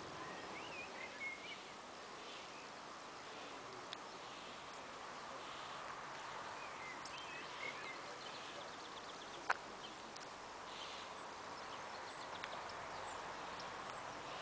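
Rural outdoor ambience with a steady background hiss and a few scattered bird chirps, short wavering calls about a second in and again around seven seconds in. A single sharp click sounds about nine and a half seconds in.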